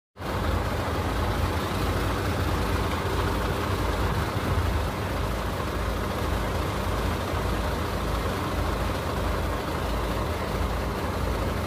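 MAN TGA 40.400 dump truck's diesel engine idling steadily.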